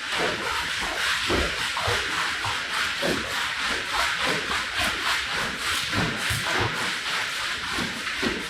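Repeated rubbing strokes of a cleaning tool across a wet, mud-caked rug, several strokes a second over a steady hiss, as the sludge is worked out of the pile.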